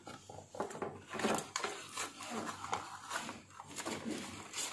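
Handling noise from an inverter AC circuit board being turned over by hand: a string of irregular light clicks, taps and rustles.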